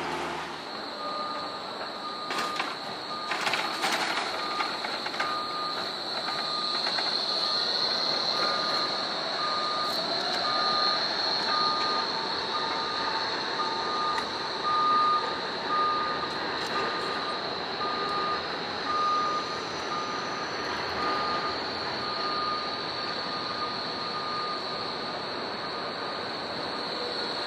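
Trams running through a tram stop, with a few sharp clicks of wheels over rail joints, under a short electronic beep that repeats about once a second, starting about a second in.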